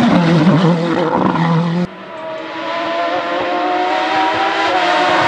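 Hill-climb competition car engine at full throttle, its note wavering, cut off abruptly about two seconds in. A second car's engine then comes in quieter, its note climbing steadily and growing louder as it approaches.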